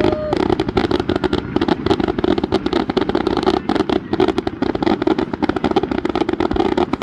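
Fireworks going off in a dense, continuous crackle of many rapid reports.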